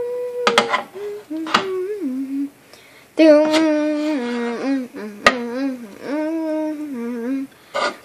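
A person's voice humming and singing long, wavering, held notes, in short phrases at first and then longer sustained ones. One sharp click cuts through about five seconds in.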